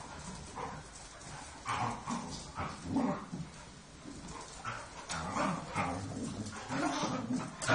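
A group of dogs playing together, giving short barks and yips at irregular moments, more of them and louder toward the end.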